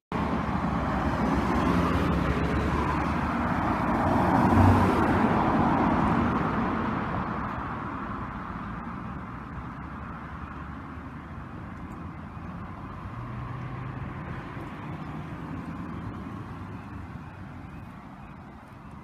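A car driving past on the road, its tyre and engine noise swelling to a peak about five seconds in and then fading, followed by quieter passing traffic.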